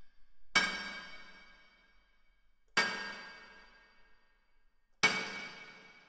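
A metal object struck three times, about two seconds apart, each hit a clang that rings on and fades out over a second or so.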